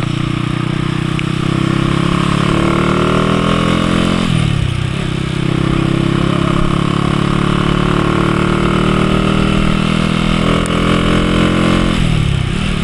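Motorcycle engine accelerating, its pitch climbing and then dropping sharply twice, about four and twelve seconds in, as it shifts up through the gears.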